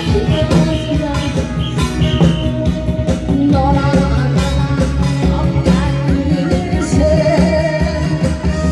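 Loud amplified music with a steady drum beat and a melody line.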